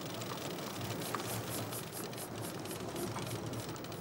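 A big-game trolling reel being cranked, giving a run of fast high clicks, about five a second, for two seconds in the middle, over the steady hiss of a sport-fishing boat's engine and the sea.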